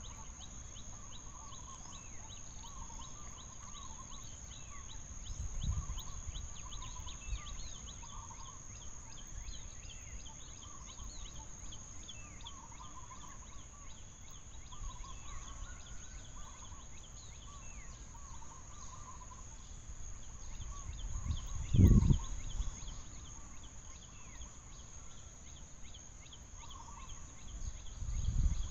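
Forest ambience: a steady high insect drone, with birds chirping and calling throughout in short warbling and falling notes. A low thump about 22 seconds in is the loudest sound, with a smaller one earlier.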